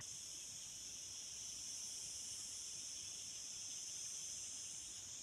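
Faint, steady high-pitched chorus of insects, an even drone with no breaks.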